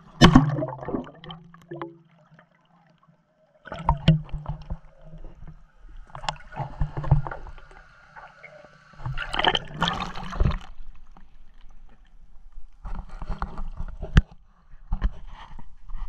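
Pool water splashing and gurgling around a waterproof action camera as it is taken under the surface and brought back up, in irregular bursts with a brief near-silent gap about two seconds in.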